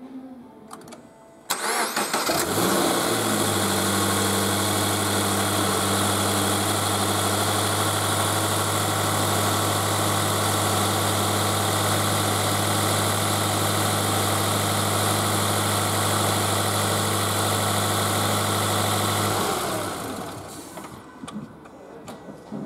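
Toyota 86 GR Sport's flat-four boxer engine starting about a second and a half in, briefly running higher before settling into a steady idle. It is switched off a few seconds before the end.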